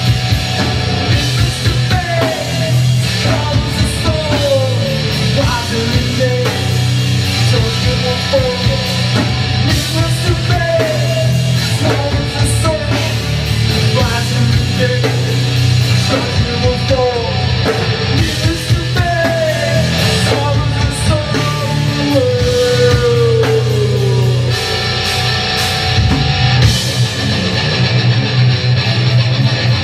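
Live heavy rock band playing loudly: guitars and drums driving continuously, with a voice singing over them.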